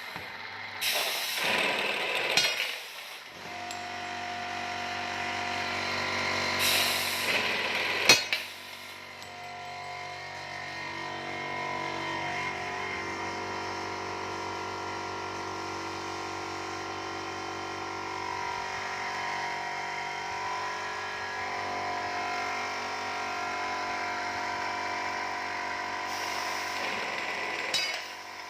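Burr-free round-tube cutting machine running, a steady motor hum with several tones in it. Short bursts of noise come in the first few seconds and again around seven seconds, then a sharp click just after eight seconds.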